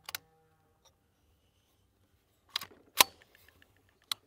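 A metallic click from the rifle near the start, then about three seconds in a single sharp shot from a suppressed Volquartsen VT2 firing 17 HMR, the loudest sound, with another click about a second later.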